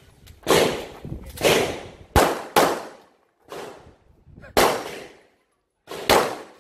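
A semi-automatic handgun firing about eight shots in quick, irregular strings during a practical-shooting course of fire, each shot sharp with a short reverberating tail. Two of the shots are fainter than the rest.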